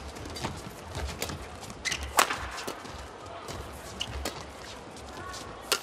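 Badminton rackets striking the shuttlecock in a fast doubles rally: a string of sharp cracks at uneven intervals, the loudest about two seconds in, with brief shoe squeaks on the court late on.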